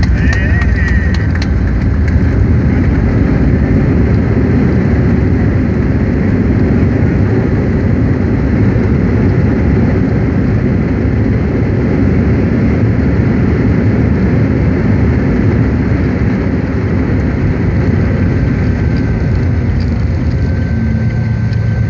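Cabin noise of a Boeing 737-700 on its landing rollout, with the spoilers deployed: a loud, steady low rumble and rush from the engines and the wheels on the runway, easing slightly near the end.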